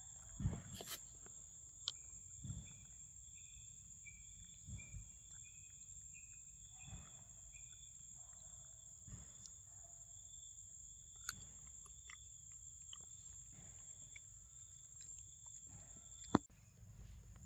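Faint forest ambience: a steady, high-pitched insect drone that stops about a second before the end, with a sharp click as it stops. A run of short, repeated high notes a few seconds in, and scattered soft thumps and rustles.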